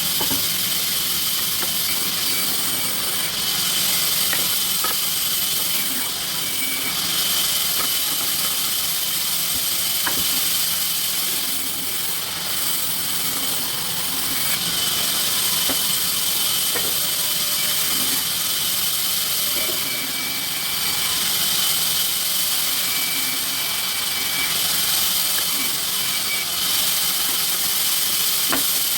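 Sawmill machinery running steadily, with a steady high tone over a constant mechanical noise and a few faint clicks.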